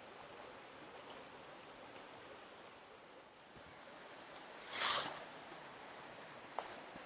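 Steady, quiet outdoor water-and-wind ambience, with a short loud whoosh about five seconds in and a single sharp click soon after.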